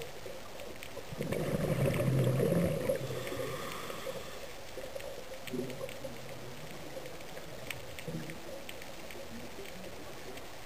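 Underwater recording: a steady hiss, with a burst of bubbling and gurgling about a second in that lasts a couple of seconds, and fainter gurgles later.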